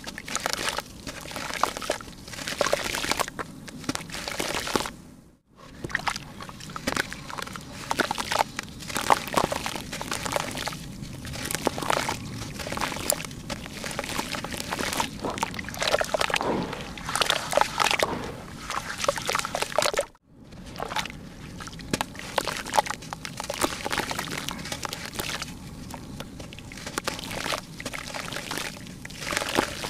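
Hands squeezing and crumbling clumps of wet red dirt, crumbs crunching and dropping into shallow water with sloshing and splashing. Two brief drops to silence come about five and twenty seconds in.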